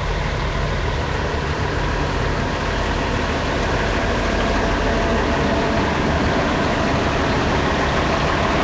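Heavy machinery engine running steadily with a low rumble, growing slightly louder as it goes.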